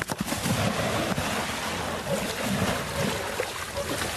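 A man plunging into deep, muddy floodwater with a splash, then the water churning and sloshing around him as he wades and swims.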